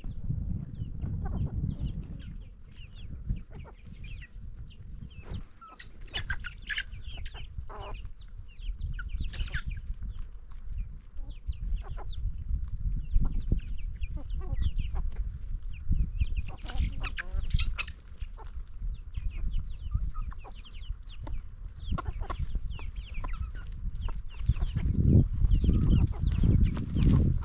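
A flock of chickens clucking, with many short calls scattered throughout, over a steady low rumble that swells near the end.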